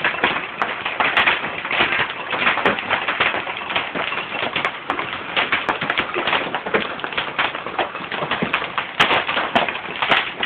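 Hailstones hitting hard surfaces in a dense, steady patter of many rapid clicks and taps, with a continuous rushing hiss of heavy precipitation underneath.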